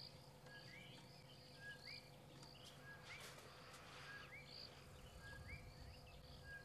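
Faint, quiet bush ambience: a bird repeats a short two-part call, a brief note then a rising note, about once a second, over a faint steady hum.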